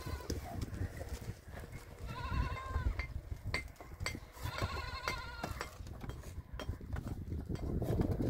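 Goats bleating twice, each a wavering call under a second long, the second about two seconds after the first, over scattered clicks and a low rumble.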